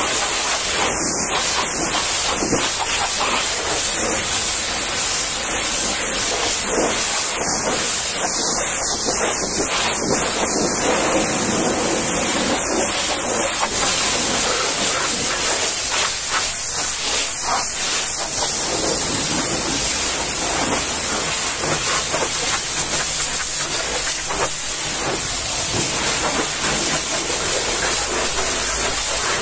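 High-pressure washer lance spraying water onto a truck's cab panels and wheel arch, rinsing off mud: a steady, loud hiss of spray hitting metal.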